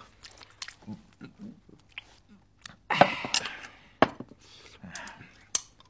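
Men eating and drinking at a table: chewing, with scattered sharp clicks and knocks of bowls and dishes, and a louder rushing burst about three seconds in.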